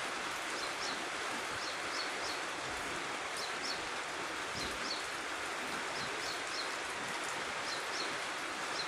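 Steady hiss of light drizzle falling. A bird repeats short, high chirps, often in pairs, every second or so.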